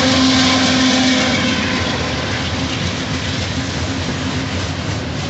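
Union Pacific freight train passing close by: a steady droning tone from the last passing locomotive fades out about a second and a half in. It leaves the rumble and rattle of the freight cars rolling along the rails.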